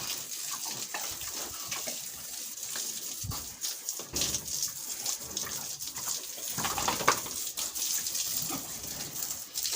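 Water from a hose pipe running and splashing onto the concrete floor of a pig pen and over the pigs, a steady hissing splash.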